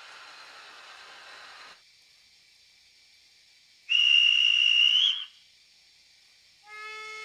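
Model railway departure sounds. A steady hiss cuts off about two seconds in. Around four seconds in a station dispatcher's whistle gives one loud, high blast of just over a second, rising slightly at its end: the signal to depart. Near the end the steam locomotive's whistle answers with a lower, fuller steady tone.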